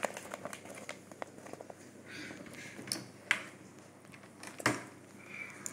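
A child eating close to the microphone: soft chewing and mouth smacks with scattered small clicks, and a few sharper ticks, the loudest about a second before the end.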